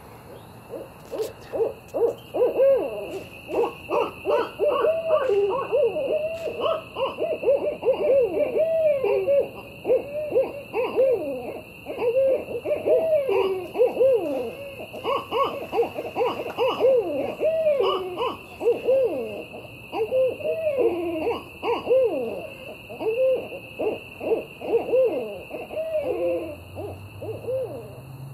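Barred owl calls: a long, dense run of hoots in quick succession, each rising then falling in pitch. They start about two seconds in and die away near the end.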